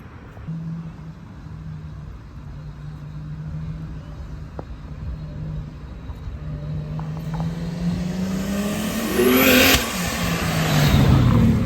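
Turbocharged car engine running steadily, then revving up over several seconds to a loud peak with a sharp burst of noise, and the pitch rising once more and then dropping away near the end.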